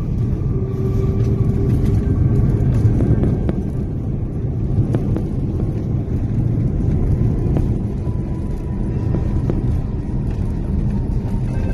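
Steady low rumble of an Airbus A350-900 airliner, with a few faint clicks over it.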